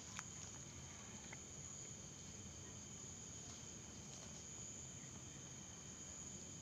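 Crickets chirring in a faint, continuous, steady high trill, with one short click just after the start.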